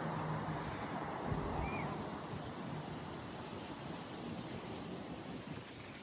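Outdoor ambience: a steady hiss of background noise with a few short, faint, high bird chirps, scattered over the first four seconds or so.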